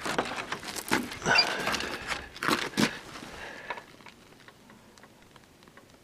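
Scattered crunches and rustles of someone moving about and handling things, busiest in the first three seconds, then fading to near quiet.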